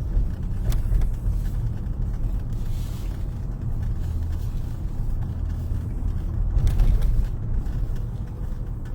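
Road and engine noise heard from inside a moving car: a steady low rumble, slightly louder about seven seconds in.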